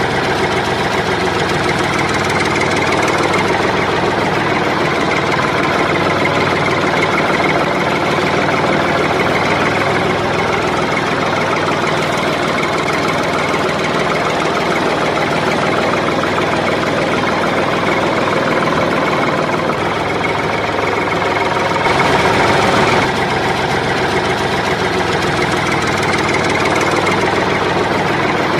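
Tractor engine sound effect running steadily, with a brief louder stretch about 22 seconds in.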